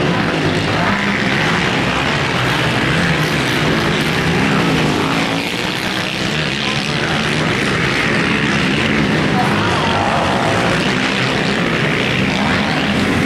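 Several racing ATV (quad) engines running hard on a motocross track, their pitch rising and falling over and over as riders work the throttle.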